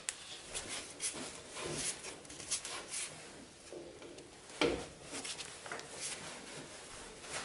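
Rubber V-belt rubbing and scraping over the pulley's groove edges as the tensioned pulley is turned slowly by a gloved hand to walk the belt into its groove, with small clicks throughout and one louder dull knock a little past halfway.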